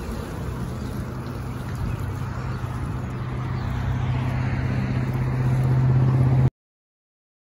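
A steady low engine hum over outdoor noise, growing louder, then cutting off suddenly about six and a half seconds in.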